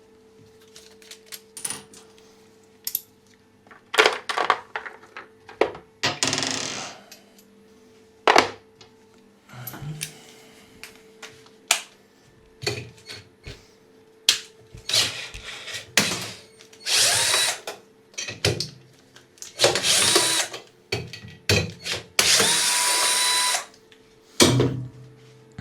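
Cordless drill-driver run in several short bursts of about a second each, the last one longer, undoing the bolts that hold the washing machine's counterweights, with clicks and knocks of tools and metal parts in between.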